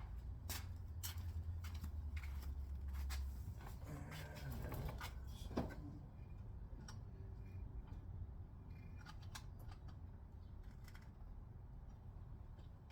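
Scattered clicks, taps and scrapes of hands and tools working on a car tail light as it is taken apart, with a low rumble over the first few seconds and one sharper click about five and a half seconds in.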